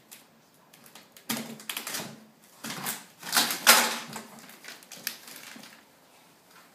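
Cardboard shipping box being opened with a knife: tape slicing and tearing, cardboard flaps and paper packing rustling. The sound comes as a series of short scratchy bursts, loudest a little past the middle.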